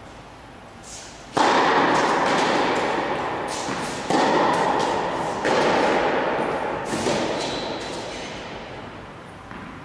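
Tennis rally in a large indoor hall: rackets strike the ball with sharp pops, four loud hits in about six seconds, each ringing on in the hall's long echo.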